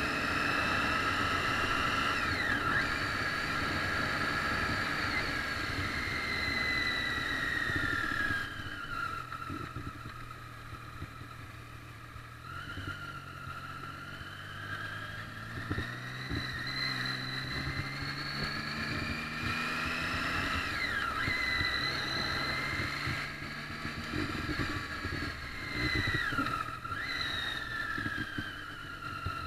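Triumph Street Triple's inline three-cylinder engine pulling on the road: its pitch climbs through the revs and drops sharply at several gear changes, with a quieter, lower-revving stretch partway through before it picks up again.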